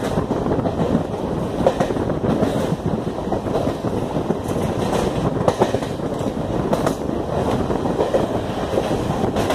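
Passenger train running along the track, heard from an open coach doorway: a steady rumble of wheels on rails with occasional sharp clacks over rail joints.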